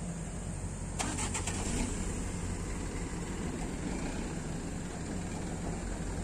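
Diesel engine of a crane truck running steadily, with a brief rattling clatter about a second in.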